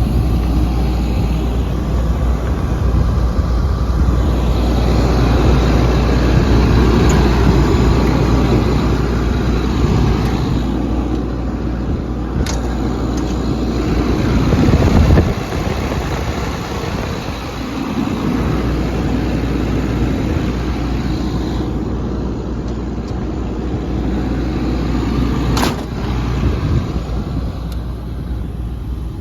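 XCMG XE360U excavator's Cummins diesel engine running steadily with a deep drone. Its level swells and falls, drops sharply about halfway through, and two sharp clicks come midway and near the end.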